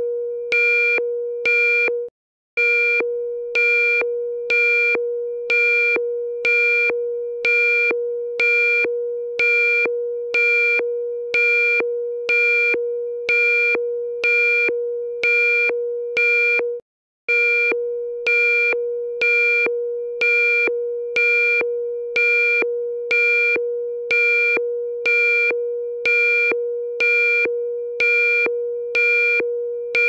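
Emergency broadcast alarm tone: a steady low electronic tone with a higher beep pulsing over it, about three beeps every two seconds. The whole sound cuts out briefly twice, a couple of seconds in and about halfway through.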